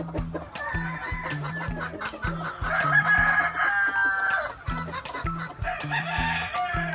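Gamefowl roosters crowing, three crows in turn with the longest and loudest in the middle, over background music with a steady low beat.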